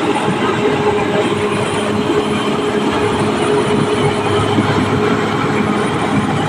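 Caterpillar D6R XL crawler bulldozer working: its diesel runs steadily under dense clanking of the steel tracks, with a steady squealing whine that fades about halfway through.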